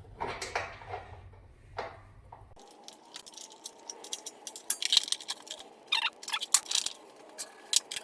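Irregular metallic clicks, clinks and knocks of hand tools and parts being worked on a riding mower as a part is unbolted: a few in the first two seconds, then a quick run of sharp ones over the last three or four seconds.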